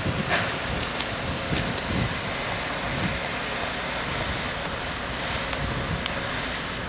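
Steady hum of road traffic with wind buffeting the microphone, and one sharp click about six seconds in.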